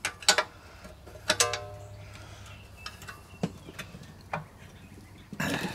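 Scattered sharp clicks and knocks of an old Briggs & Stratton engine's metal parts being handled and shifted on a workbench, a few with a brief metallic ring, and a short scuffing noise near the end.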